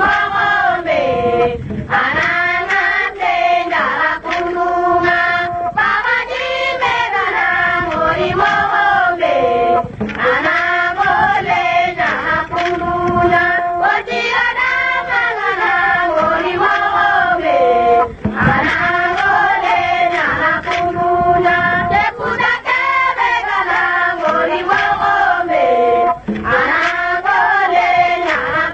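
Music: a voice chanting or singing a melodic phrase that repeats about every four seconds, each phrase ending on a long held note.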